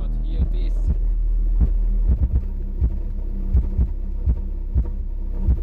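Bass-heavy music played through a DD Audio Redline 610e subwoofer in a toilet-bowl enclosure, heard inside the car. Steady deep bass notes run under frequent sharp thumps.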